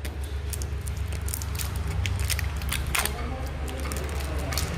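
E-liquid bottle's packaging being torn open and handled by hand: a run of sharp crackles and clicks over a steady low hum.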